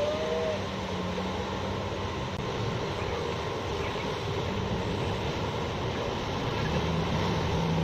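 Steady drone of heavy mining machinery at work, diesel engines running, with a deeper engine tone rising a little near the end.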